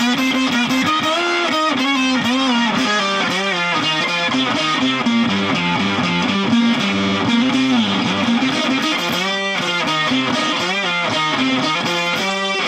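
Fender Stratocaster electric guitar played through a Fender Shields Blender octave fuzz pedal: a fuzzy, sustaining single-note lead line with string bends and vibrato.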